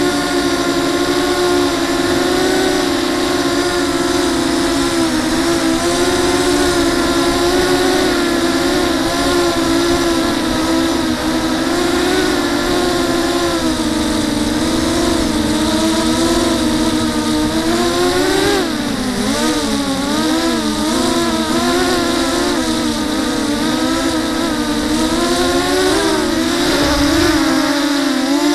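Electric motors and propellers of a 250-size FPV racing quadcopter buzzing, the pitch wavering up and down constantly with throttle changes. The pitch drops sharply and climbs back about two-thirds of the way through.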